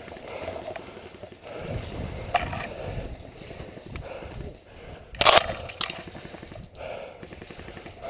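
Rustling and footfalls of an airsoft player moving through woodland undergrowth, with a light knock about two seconds in and a sharp crack a little after five seconds.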